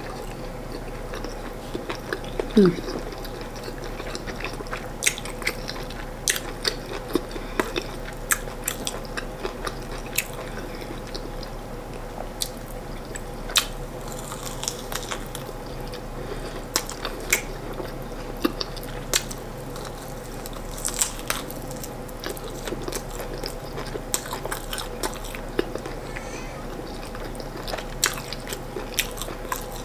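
Close-up eating sounds: chewing and biting into firm corn fufu and chicken, with many short wet mouth clicks and smacks scattered throughout.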